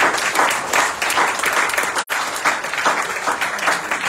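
Audience applauding, a dense spread of hand claps, with a split-second dropout in the sound about two seconds in.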